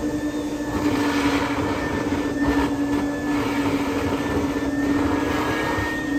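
Build-A-Bear fluff-stuffing machine running: its blower gives a loud, steady droning hum with an airy rush.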